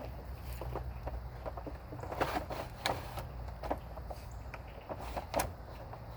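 Dry twigs and brush crackling and snapping irregularly, with a few sharper snaps, over a steady low rumble.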